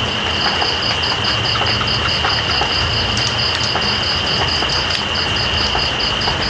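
Night insects chirping over steady rain: one high continuous trill and a second pulsing chirp about five times a second, with scattered drip clicks and a low steady rumble underneath.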